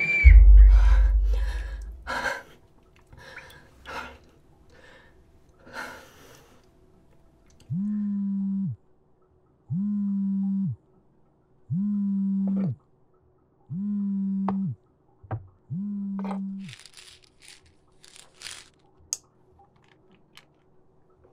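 A deep low thud and rumble at the start, then a smartphone vibrating on a table for an incoming call: five buzzes about a second long, about two seconds apart. Faint hissing and clicks near the end.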